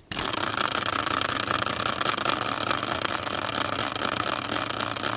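Hand-spun prize wheel whirring steadily on its axle, starting sharply just after it is flicked and running on without a break.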